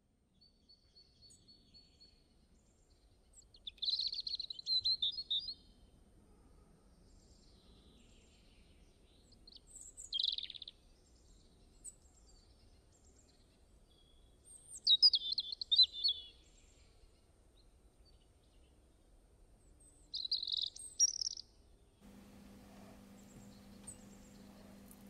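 Small bird chirping in short, rapid high twittering bursts about every five seconds, over faint background noise. Near the end a steady low hum comes in.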